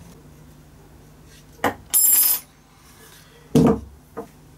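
A small click, then a short metallic clink with a brief high ring about two seconds in. About a second and a half later comes a single loud knock of wood on the wooden workbench, followed by a faint click.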